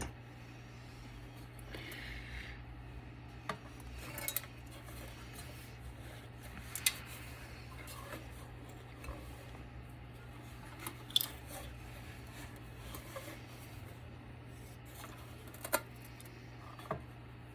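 Metal hand tools clicking and scraping against the parts of an electronics power board while it is being stripped, in scattered sharp clicks at irregular intervals over a steady low hum.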